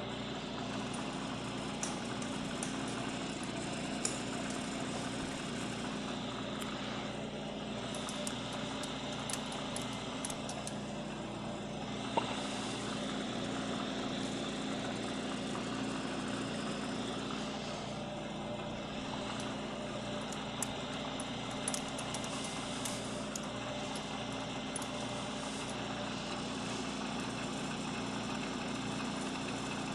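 Milling machine running with an end mill in its spindle: a steady motor hum, with faint sharp ticks now and then.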